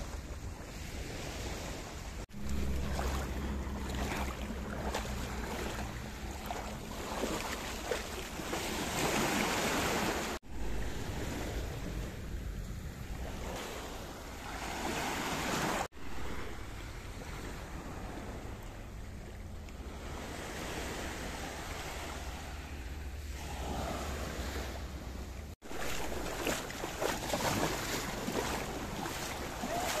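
Small sea waves washing onto the shore and swirling over rocks, with wind rumbling on the microphone. The sound drops out for an instant four times.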